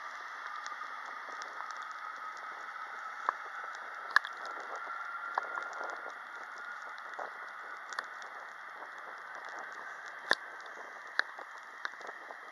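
Far-off roar of an Airbus A320-232's IAE V2500 turbofan engines at take-off thrust: an even rushing hiss with a faint high whine that rises slightly, slowly fading as the jet rolls away and lifts off. Scattered sharp clicks break through it.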